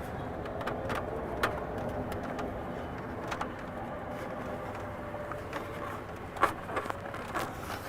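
Scattered light clicks and knocks of plastic cold air intake tubing and fittings being handled and pushed into place, over a steady low background hum.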